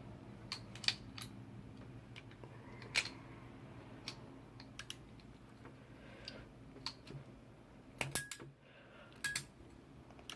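Crimping tool and RJ45 plug on Cat5 cable: scattered sharp plastic-and-metal clicks and small handling noises as the plug is crimped, with a quick cluster of clicks near the end.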